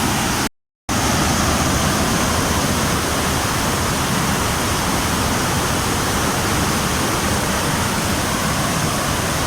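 Waterfall rushing: a steady, loud wash of falling water that drops out to silence for a moment about half a second in.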